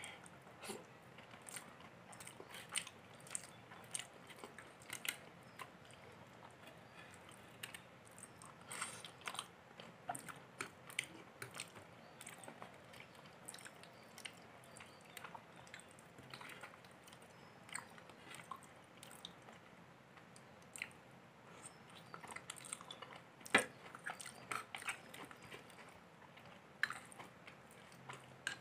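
Chewing and mouth sounds of someone eating thick, set rice pudding, with scattered short clicks of a metal spoon scraping and tapping a small glass bowl; one sharper click comes a little before the end.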